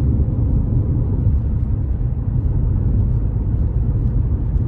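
Steady low rumble of a car driving at road speed, heard from inside.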